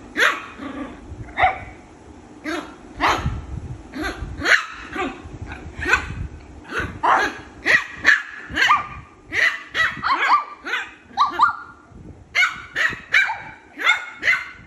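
Shih Tzu puppy barking over and over in short, high yaps, the barks coming faster in the second half.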